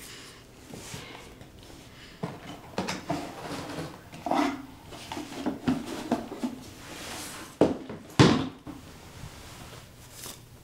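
Items being handled in an open suitcase: a run of soft knocks, clunks and rustling, with two sharp knocks about half a second apart roughly three-quarters of the way in.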